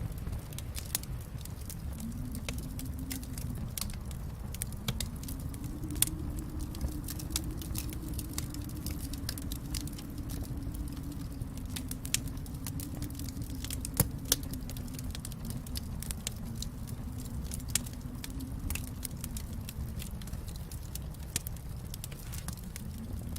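Wood fire crackling in a fireplace: a steady low rumble of the flames with frequent small crackles and a few sharper pops, two of them in quick succession about fourteen seconds in.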